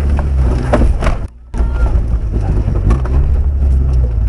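Off-road trial 4x4's engine running low and slow, heard from inside the cab, with knocks and thumps from the body and suspension working over rough ground. The sound drops out briefly a little over a second in.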